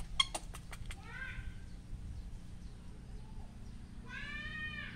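Baby monkey giving two thin, high cooing calls: a short one about a second in and a longer one near the end, with a few soft clicks at the start.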